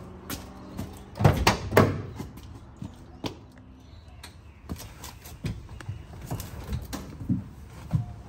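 Hard-soled boots stepping on a concrete floor and the door of an old Chrysler Valiant being opened and handled: a series of sharp knocks and clacks, the loudest few close together about a second and a half in.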